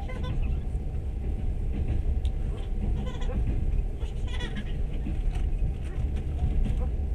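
Train running along the track, heard from on board: a steady low rumble of wheels and carriage. Brief faint higher warbling sounds come near the start and again about four seconds in.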